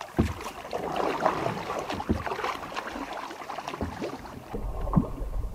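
Canoe paddles dipping and pulling through lake water, with irregular splashes and drips as a tandem canoe paddles away from shore. A low wind rumble on the microphone comes in near the end.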